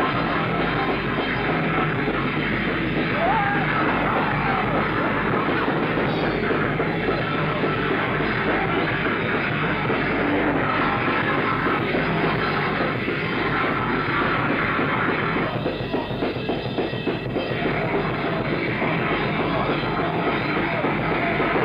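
Hardcore punk band playing live, with bass guitar, electric guitar and a pounding drum kit, loud and continuous.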